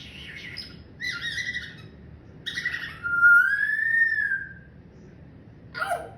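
Pet parrot calling: three short harsh calls, then a long whistle that rises and falls over about a second and a half, and one more short call near the end.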